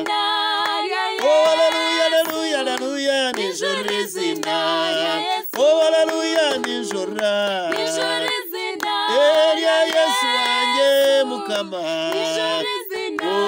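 A man and two women singing a gospel hymn unaccompanied in harmony, holding long notes with sliding pitch, with a few hand claps.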